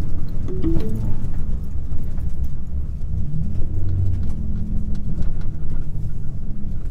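Alfa Romeo MiTo's engine and road noise heard from inside the car's cabin while driving: a steady low rumble, with the engine note rising and falling slightly.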